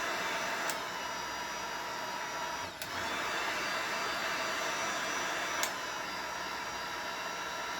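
Heat gun blowing steadily with a faint motor whine, warming a sticker to soften its glue. A few light clicks come through it.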